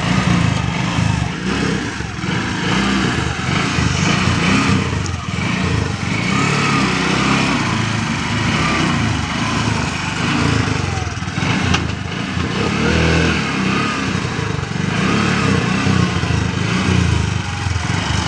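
Auto rickshaw's small engine running steadily at low speed as the three-wheeler pulls away and turns around.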